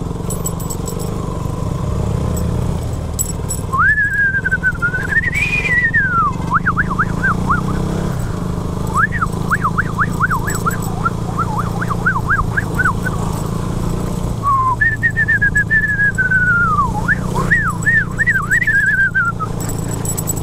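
Emergency vehicle siren, starting about four seconds in and switching between a slow rising-and-falling wail and a fast warbling yelp, then stopping shortly before the end. Underneath, a motorcycle engine runs steadily in traffic.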